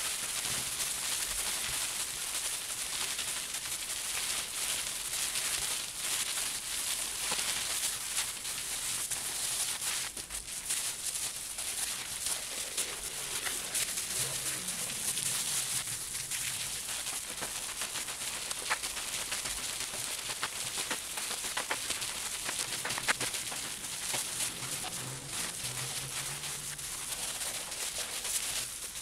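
Wet, soapy wool felt being rubbed and kneaded by plastic-gloved hands on bubble wrap while it is fulled: a continuous wet rubbing and plastic rustling with many small clicks.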